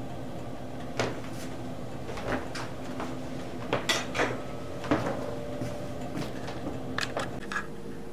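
Several scattered light knocks and clinks of kitchen cookware and utensils being handled, over a steady low hum.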